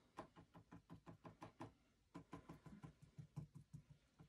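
Paintbrush dabbing rapidly against a flat canvas panel lying on a table, stippling in leaves: a run of faint, even taps about five a second, with a short pause about two seconds in.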